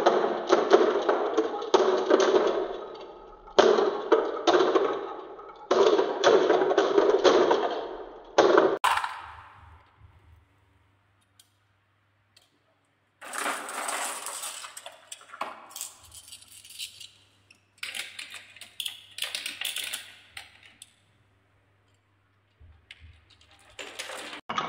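Glass marbles rolling and clattering along a wooden wave-shaped track, a dense rattle in three runs over the first nine seconds. After a few seconds of near silence come lighter, brighter clinks and rattles in short spells.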